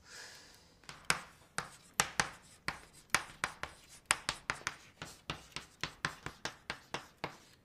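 Chalk writing quickly on a blackboard: a rapid, irregular run of sharp taps and short scratches, several a second, as a formula is chalked up.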